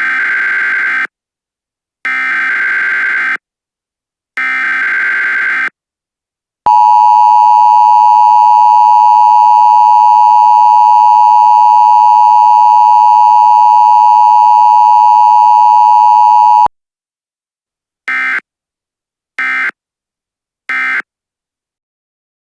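Emergency Alert System tones: three digital data bursts of about a second each (the SAME header), then the steady two-tone attention signal held for about ten seconds, then three brief bursts.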